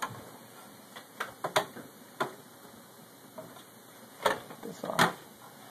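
Scattered sharp plastic clicks and taps from an Xbox 360 cooling fan and its wires being handled and pushed into the console's plastic case. The loudest knocks come about four to five seconds in.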